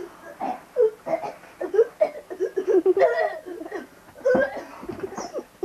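Young children's voices in short, high squeals, cries and laughter as they wrestle and play-fight.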